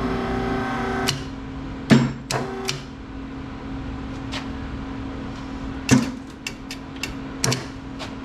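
A series of sharp metal knocks and clanks, about nine of them in two clusters, over a steady hum. The knocks come as an axle is worked into a Mopar 8 3/4 rear axle housing.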